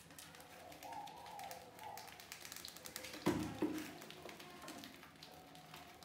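Many small ticks and scratches of rats' claws on a plastic bucket and a stretched balloon as they clamber over the trap, with a louder thump about three seconds in.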